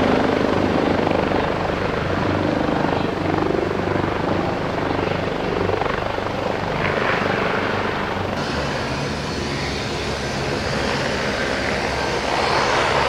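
Coastguard search-and-rescue helicopter hovering low and touching down, its rotors and turbine engines running steadily throughout with a low pulsing rotor beat.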